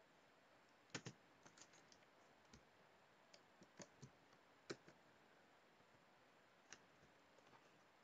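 Faint, irregular keystrokes on a computer keyboard: about a dozen separate clicks, the first two close together about a second in, over faint room hiss.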